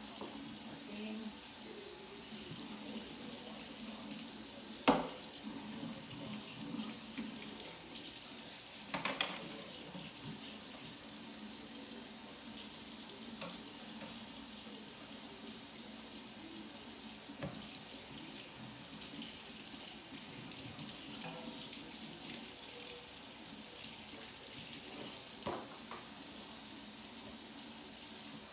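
Kitchen sink tap running steadily, with a few sharp knocks over it: a loud one about five seconds in and a couple near nine seconds.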